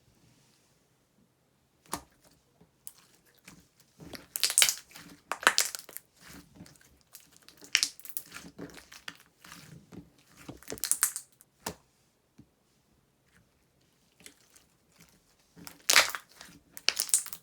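Clear slime being squeezed and stretched by hand, crackling and popping in irregular bursts with short quiet pauses between handfuls; the slime is still full of trapped air bubbles.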